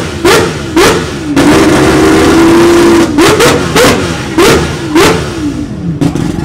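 Five-rotor rotary engine of Mad Mike's 787D being revved hard: two quick blips, a held high-rev run of about a second and a half, then five sharp blips, each rising in pitch and falling back.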